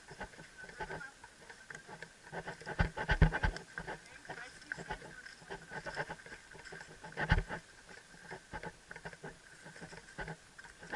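Irregular knocks and rubbing from a heavy helmet-mounted camera jostling on a rider's helmet as the horse walks, mixed with the horse's hoofsteps on corn stubble. The loudest knocks come about 3 seconds and 7 seconds in.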